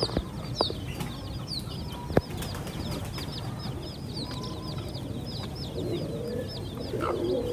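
Small birds chirping in a steady, rapid run of short high chirps, several a second, with one sharp click a little after two seconds in.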